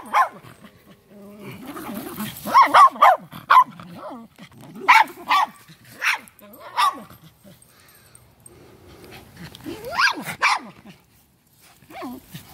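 Small dogs barking while they play, in several short runs of sharp barks with a lull between, the last run about ten seconds in.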